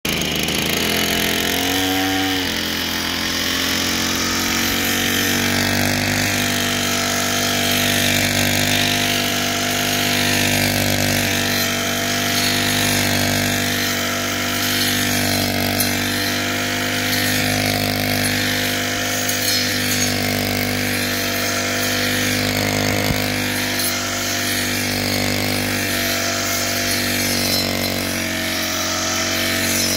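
Brush cutter engine fitted with a 12-inch circular blade, running steadily at high speed, its level swelling and dipping slightly; the pitch shifts briefly about two seconds in.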